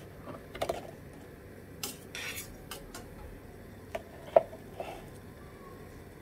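A stainless mesh skimmer knocking and scraping against a plastic colander while it shifts a block of blanched tofu: scattered light clicks and knocks, the sharpest a little past the middle.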